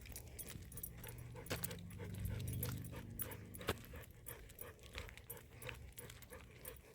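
Labrador retriever panting in quick, even breaths, with a few sharp clicks.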